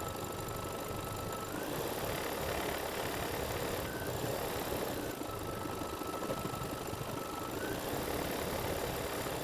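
Computerized embroidery machine stitching out a design, a steady fast needle rattle with a faint motor whine that steps slightly in pitch a few times as the hoop moves.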